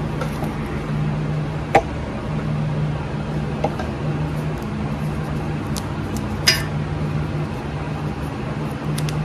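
A steady low hum, with a few small sharp clicks from hands handling the wire terminals while wrapping them in electrical tape.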